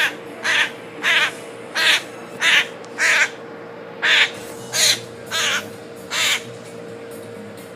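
Baby grackle giving short, harsh begging calls, about ten in a row at a steady pace, while being hand-fed; the calls stop about six seconds in. A faint steady hum runs underneath.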